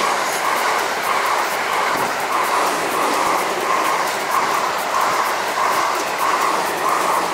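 Japanese level-crossing warning bell ringing in a steady beat, a little under two rings a second. A passing train's wheels click on the rails, the clicks growing busier near the end.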